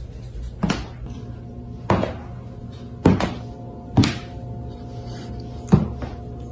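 A cat's front paw stuck in a slipper knocking against a hardwood floor as the cat walks: about five sharp, unevenly spaced thunks. Background music plays throughout.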